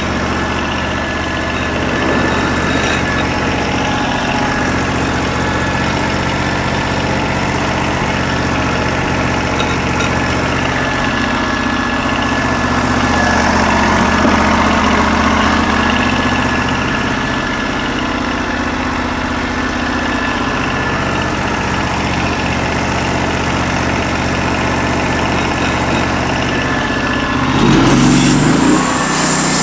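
The portable sawmill's 16 hp engine running steadily. Near the end its pitch rises sharply as it revs up.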